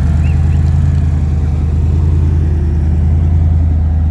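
Engine of a lifted 4x4 off-road truck running steadily, with a deep, even low drone.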